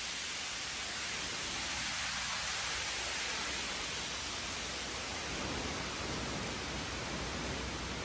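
Strong wind blowing through birch and spruce treetops, a steady rushing hiss of leaves, with low wind buffeting on the microphone growing from about five seconds in.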